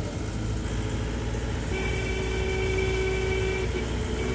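Tempo Traveller van running along a mountain road, heard from inside the cabin as a steady engine and road rumble. For about two seconds in the middle a steady pitched tone sounds over it.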